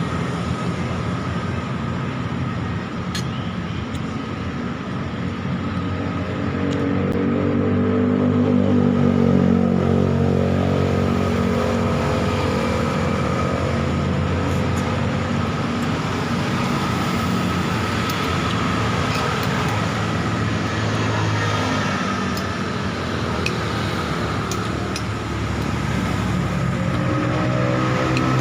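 Road traffic passing close by: engines of passing vehicles rise and fall over a steady traffic hum, one loudest about eight to ten seconds in and another coming in near the end.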